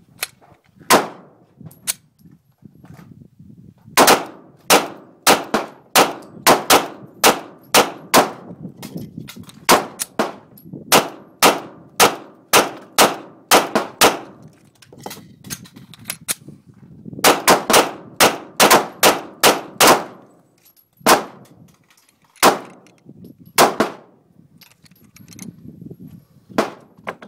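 Glock 35 pistol in .40 S&W firing: one shot, then three fast strings of roughly two to three shots a second, then four spaced single shots near the end. The short lulls between strings are magazine changes.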